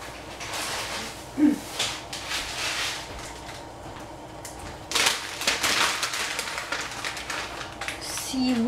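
Packaging rustling and crinkling in bursts, as a packet of dried seaweed is handled and opened, with a brief pitched squeak about one and a half seconds in.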